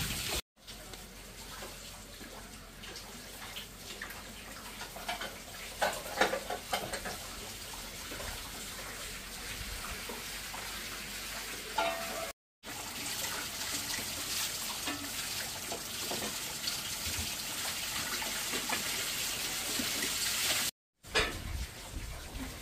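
Water running steadily, with a few knocks and clatters about six seconds in. The sound cuts out briefly twice.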